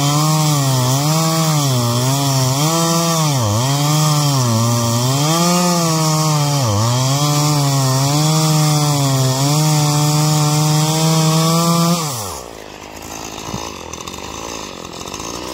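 Poulan Pro 5020 50cc two-stroke chainsaw at full throttle, cutting through a pine log. The engine note sags and recovers about once a second as the chain bites into the wood. About twelve seconds in the throttle is released and the engine speed falls away.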